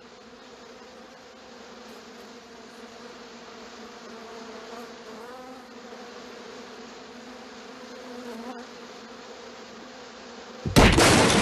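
Swarm of bees buzzing, a steady drone that grows a little louder. A sudden loud outburst of voices breaks in near the end.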